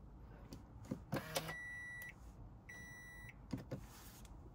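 Toyota Esquire's electrical system being switched on: a few clicks, then two electronic beeps of about half a second each, a second apart, and a couple more clicks as the dashboard warning lamps light for the start-up check. No engine running is heard.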